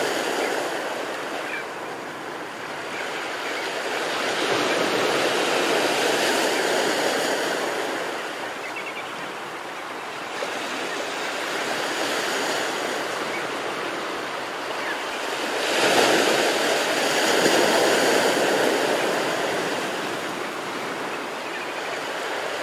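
Ocean surf breaking on a sandy beach: a continuous wash of breaking waves and foam that swells and ebbs slowly, with a sudden louder surge about two-thirds of the way through.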